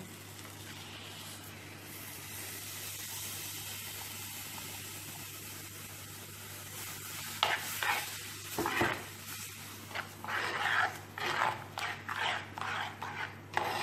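Onion-tomato masala sizzling with a steady hiss in a clay pot on a low flame. From about halfway, once the whipped curd is in, a steel spoon stirs and scrapes through the mixture in a run of irregular strokes.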